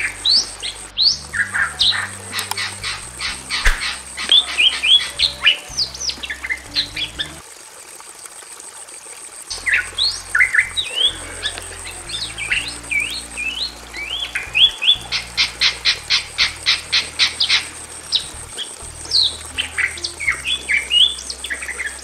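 A pair of Bali mynas calling loudly: harsh chattering and whistled notes that sweep up and down, with a fast run of evenly repeated notes past the middle and a short pause about a third of the way in.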